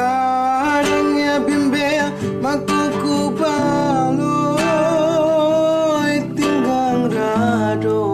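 Solo voice singing a Kerinci regional song over a strummed acoustic guitar, the voice holding notes with vibrato.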